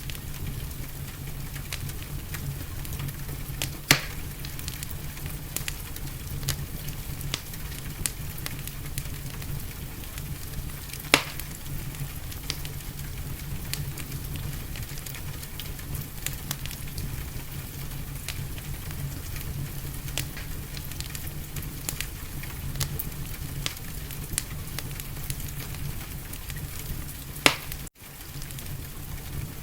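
Wood fire crackling in a fireplace: a steady hiss with frequent small snaps and three louder pops, about four, eleven and twenty-seven seconds in. The sound drops out for an instant just before the end.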